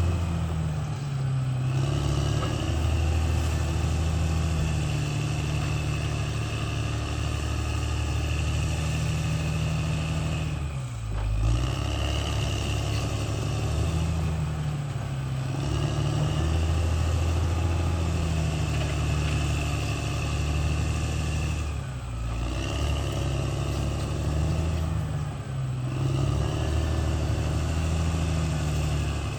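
Caterpillar D6R XL bulldozer's diesel engine running under changing load, its pitch and level rising and falling, with several short dips.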